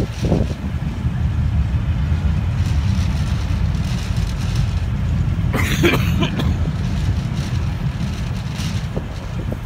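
Passenger coaches rolling past close by: a steady low rumble of wheels on rails, with a brief higher-pitched screech about six seconds in.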